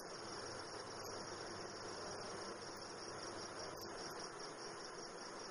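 Faint, steady, high-pitched chirring of crickets in the background, with a few tiny clicks of cord being handled.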